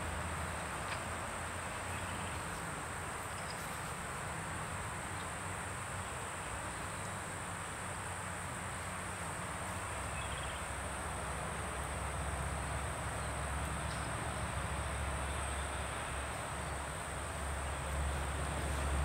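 Steady high-pitched insect trill, like crickets, over a low steady rumble of outdoor background noise.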